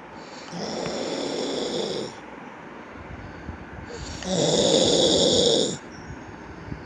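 Snoring: two long, rasping snores, each about a second and a half, roughly four seconds apart, the second louder than the first.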